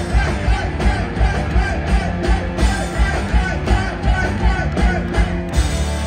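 Live rock band playing: a driving drum beat of about three kicks a second under electric guitars, bass and singing, all stopping together on a final hit about five and a half seconds in, leaving the last chord ringing.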